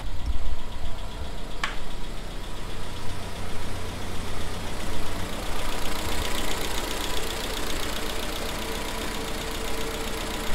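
Willys flat-fender Jeep's engine running steadily, with heavy low rumble and one sharp click about two seconds in.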